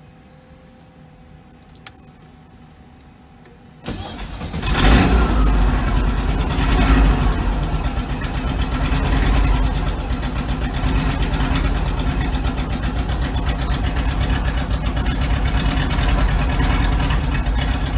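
Porsche 2.0 air-cooled flat-four breathing through twin Weber 44 IDF carburettors, heard from inside the Beetle's cabin: about four seconds in it is started and catches, revs up briefly twice, then settles into a steady, evenly pulsing idle.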